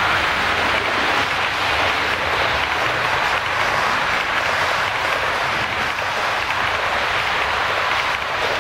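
H0-scale model passenger train rolling past at speed: a steady rolling noise of the coaches' metal wheels on the rails.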